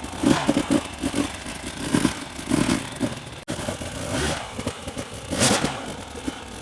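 Enduro dirt bike engine revving in short, uneven bursts as it is ridden off-road, with some clatter from the bike.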